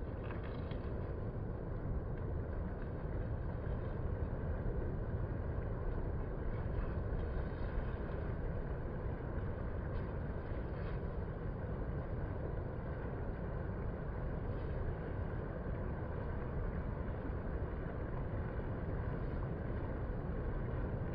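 Steady low rumble of distant ocean surf breaking on the shore, an even wash of noise with no distinct events.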